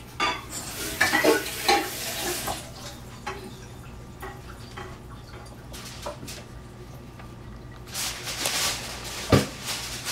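A spoon stirring moist dressing in a large stainless steel bowl, scraping in two spells, the second ending in one sharp knock near the end.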